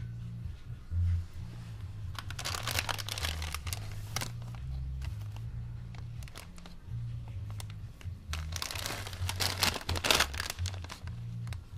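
Small foil Doritos snack bag crinkling as it is picked up and handled, in two spells of crackling. Background music with a steady bass beat plays underneath.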